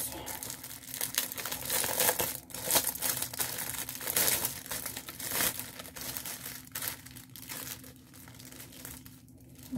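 Clear plastic packaging bag crinkling and rustling as it is handled and opened, in irregular crackles that thin out near the end.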